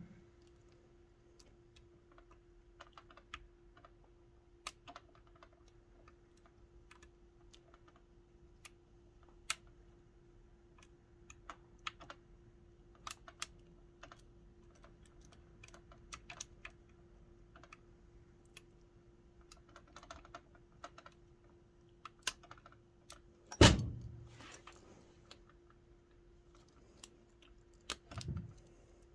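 Scattered small metallic clicks and ticks of a lock pick and tension tool working the wafers of a high-security gumball machine lock, with one louder knock about three-quarters of the way through. A steady low hum runs underneath.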